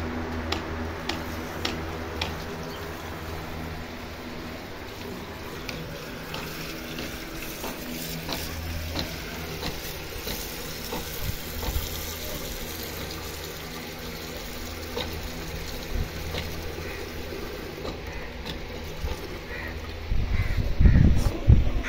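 Water running from a wall tap into a metal cooking pot as it fills, with a steady low hum underneath. A few low thumps near the end.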